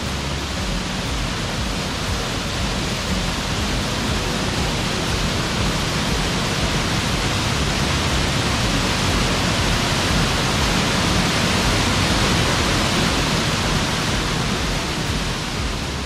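Waterfall: a loud, steady rush of water pouring over rocks into a pool, swelling a little toward the middle and falling away near the end.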